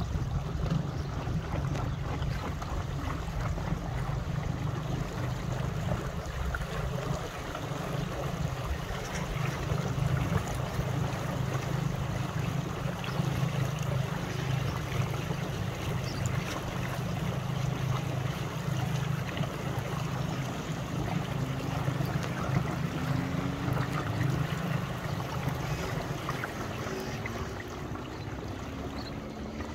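Steady wind rumble on the microphone over small waves lapping, with no distinct events.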